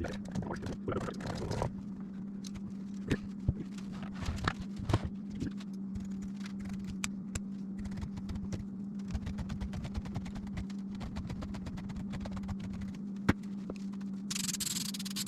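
Scattered clicks, knocks and scrapes of hands-on work over a steady low hum, with a short hiss near the end.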